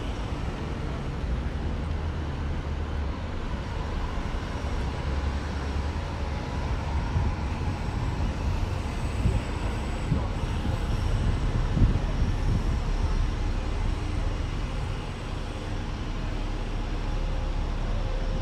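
Busy town-centre street ambience: a steady rumble of road traffic and buses, with a couple of brief louder knocks about 9 and 12 seconds in.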